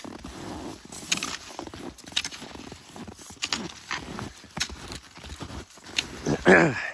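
Skis sliding and crunching through deep powder snow, with an uneven series of short crunches and knocks from strides and pole plants. Near the end a brief pitched sound drops quickly in pitch and is the loudest moment.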